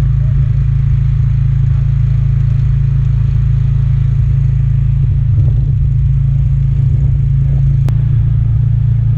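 Engine on an electrofishing boat running steadily, a loud, unbroken low hum.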